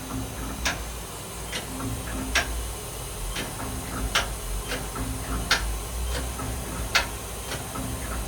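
Southwestern Industries Trak LPM CNC vertical machining center moving its axes: short stretches of low motor tone start and stop over a steady low hum, with sharp clicks about every second and a half and fainter ticks between them.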